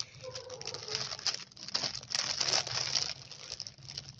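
A clear plastic bag filled with candies crinkling as it is handled, in irregular rustles that are busiest around the middle.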